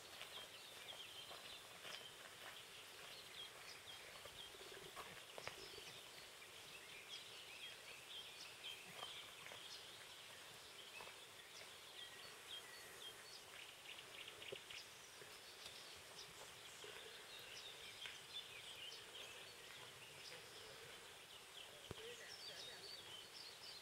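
Near silence: faint outdoor ambience with scattered faint, high, short chirps throughout.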